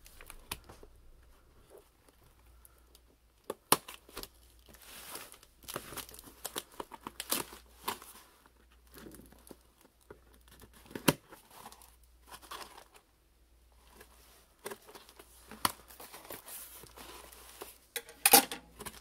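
Scissors slitting clear packing tape along a cardboard box, with tape tearing and cardboard flaps being pulled open. Irregular scraping and rustling with scattered sharp clicks, the loudest cracks near the end.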